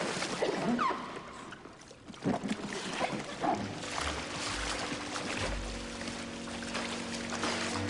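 Pool water splashing and dripping around an inflatable raft as someone climbs out of the water onto it. A score of sustained music notes comes in about halfway through and carries on to the end.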